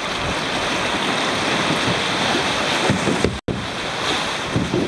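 Sea water washing and surging against the rocks of a sea-cave entrance, with kayak paddle strokes splashing and wind buffeting the microphone. The sound cuts out for an instant about three and a half seconds in.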